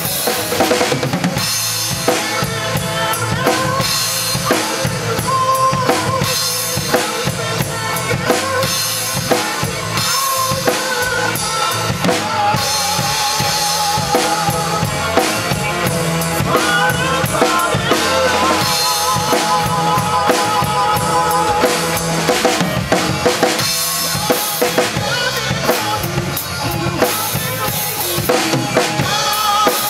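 Acoustic drum kit played live along to a recorded song: an improvised groove of bass drum, snare and cymbals over the song's 7/8 and 4/4 rhythm, with the song's melody lines running underneath.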